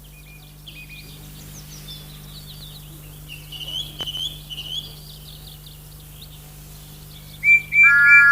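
Outdoor birdsong ambience: many small birds chirping in short high notes, busiest about three to five seconds in. Near the end, loud multi-note whistle tones start up, held and gliding between pitches.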